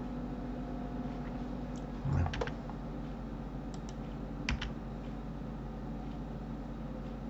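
A few clicks on a computer keyboard and mouse: a quick cluster about two seconds in, two light clicks near four seconds and one more at about four and a half seconds, over a steady low electrical hum.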